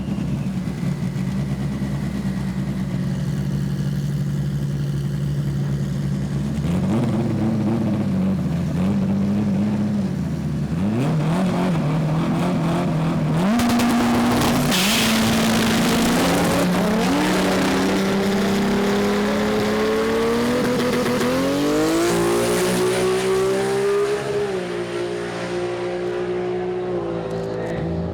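Drag race car engine idling, then blipping the throttle, with a loud surge about halfway through and the engine pitch climbing in steps through the second half as it revs hard.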